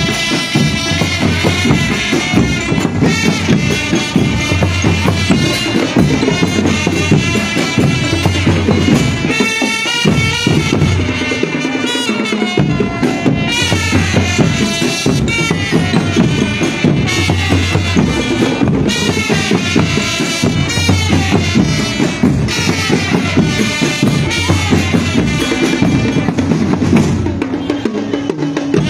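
Marching drum band playing: bass drums and snare drums beating a steady rhythm, with a pitched melody line over the drums. The bass drums drop out briefly about halfway through.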